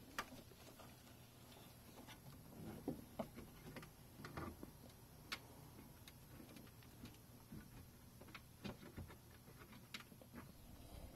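Faint, irregular clicks, taps and rustles of a hand fumbling among plastic parts, hoses and the intake pipe in a car's engine bay, feeling for a side-marker bulb socket.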